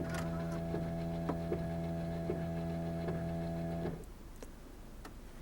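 Jeep Cherokee power-antenna motor running with a steady hum for about four seconds after the radio is switched off, then cutting out, while the mast does not move. The owner takes this to mean the antenna's drive cable on the motor is broken or its teeth are stripped.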